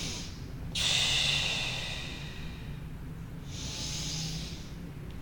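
A woman breathing deeply and audibly through a stretch: a long breath about a second in and a shorter one near the end. She is breathing out to ease further into the stretch.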